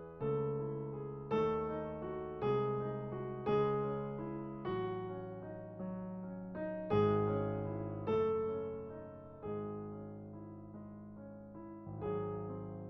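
Slow, calm piano music: chords struck about once a second, each ringing and dying away before the next.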